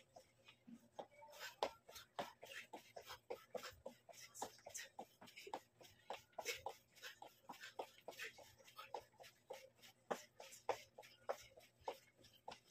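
Faint sounds of a person doing aerobic exercise: quick, irregular soft taps and puffs, several a second, from her movements and breathing.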